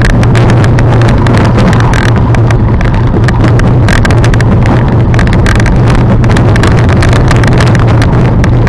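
Mountain bike descending a rough singletrail at speed: a loud, steady rumble with constant rattling and clattering over the rough ground.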